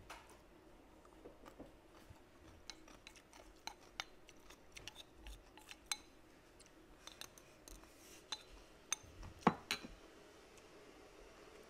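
Close-up eating sounds of a person chewing braised fish, rice and raw vegetables: scattered sharp mouth clicks and smacks, loudest in a short cluster about nine and a half seconds in.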